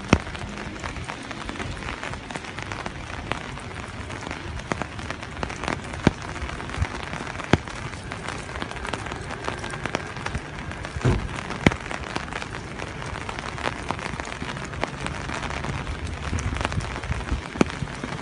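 Steady, fairly light rain falling, with scattered sharp clicks scattered through it.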